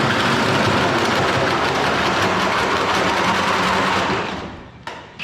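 MIG welder laying a weld on roll cage tubing: a steady crackling buzz for about four seconds that then dies away, with a second weld starting right at the end.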